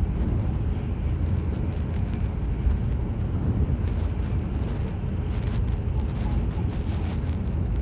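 Steady low rumble of a ferry underway: the boat's engine drone and water noise heard on board.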